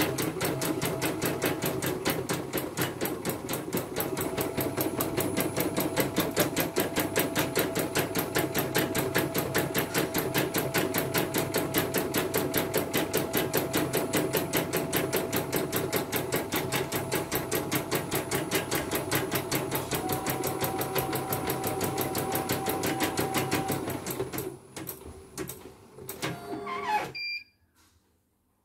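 CNY portable computerised embroidery machine stitching a design at a fast, even rhythm. Near the end the stitching breaks up and stops as the design is finished, followed by a short electronic beep.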